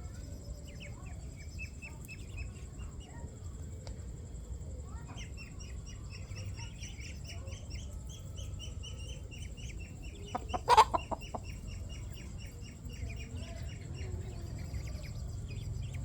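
Chick peeping in long runs of short, high, rapid notes, while the mother hen gives one loud burst of clucking about eleven seconds in.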